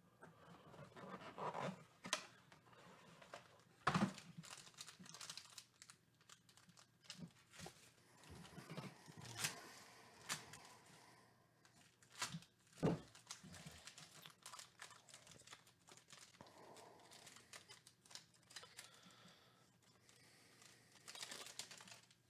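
Plastic and foil wrapping of a sports-card pack being crinkled and torn open by hand: scattered soft rustles with a few sharper crackles, the loudest about four seconds in and again near thirteen seconds.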